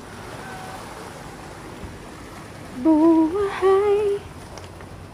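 A person humming a short, wavering note for about a second and a half near the middle, stepping up in pitch and then holding, over a steady background hiss of wind and sea.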